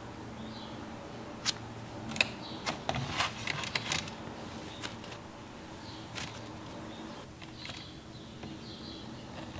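Cloud slime being stretched, drizzled and squeezed by hand: scattered soft crackles and sharp pops, thickest around three to four seconds in, over a faint steady hum.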